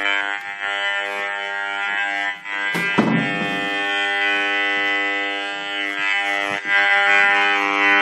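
Handheld microwave detector's speaker buzzing steadily with many overtones: its audio rendering of the pulsed DECT microwave signal from a digital baby monitor. A brief knock sounds about three seconds in.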